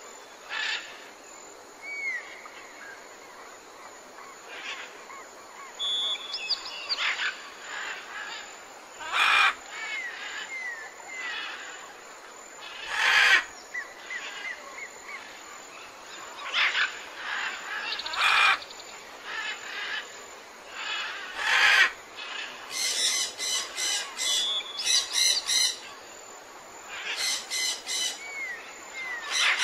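Several birds calling over a faint steady hiss: short chirps and small slurred whistles, a few louder calls every few seconds, and quick runs of rapidly repeated high chirps later on.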